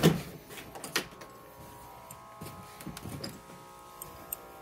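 A knock at the start and a click about a second in, then a steady electrical hum of several tones with a few soft knocks, like footsteps on a wooden floor.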